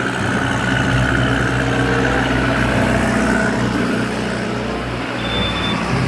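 Heavy vehicles' diesel engines running steadily on a road, a backhoe loader and a truck, with a constant low rumble. A thin high steady tone comes and goes near the end.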